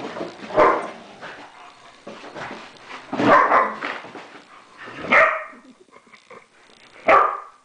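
Greyhounds play-fighting over a toy, with four short, loud barks about two seconds apart.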